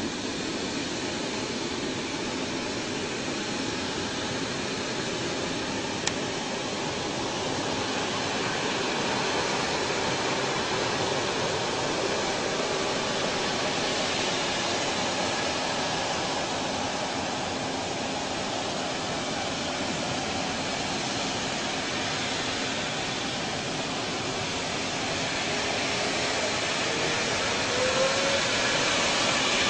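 Airbus A380's four turbofan engines running on the runway, a steady rushing jet noise that swells a little near the end, with a faint rising whine near the end.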